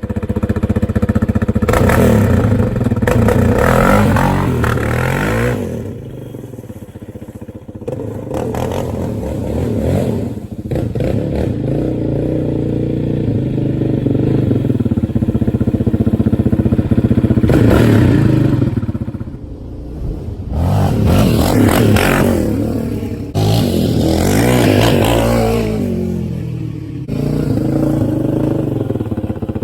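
Yamaha Raptor 700R ATV's single-cylinder four-stroke engine running with the exhaust baffle removed, revving up and dropping back again and again, its pitch rising and falling with each throttle blip.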